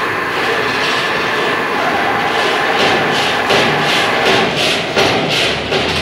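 Motor-driven three-roll plate rolling machine running, its rollers turning and bending a large steel ship plate into a cone; a steady mechanical drone, with a rhythmic rasping about three times a second from about halfway.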